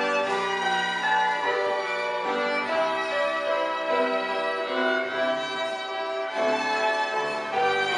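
Three violins playing together, a live violin trio, holding notes in harmony that change about every half second to a second.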